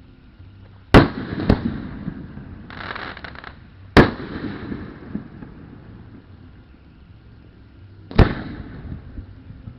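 Aerial fireworks shells bursting: a sharp boom about a second in and another half a second later, a third at about four seconds and a fourth near the end, each trailing off in a rumble. A brief crackle comes just before the third boom.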